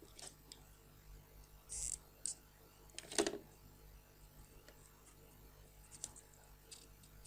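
Small handling noises of parts being worked by hand: scattered light clicks, a short hiss just under two seconds in, and a louder knock about three seconds in, over a faint steady hum.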